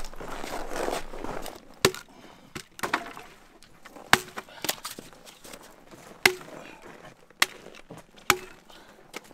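A series of sharp chopping blows, about one every second or so and irregularly spaced, some leaving a short ringing tone. The first second and a half holds a rustling noise.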